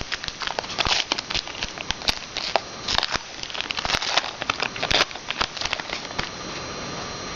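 A pack of trading cards being torn open, its wrapper crinkling and rustling in a dense run of crackles that stops about six seconds in.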